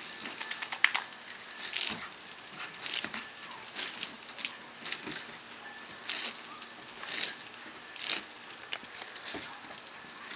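Water from a garden hose spraying and splashing onto a wet wooden deck in short hissing surges about once a second, with scattered sharp clicks.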